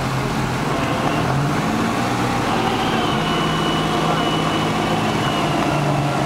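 Unimog engines running steadily at low revs, with a thin high whine for a few seconds in the middle.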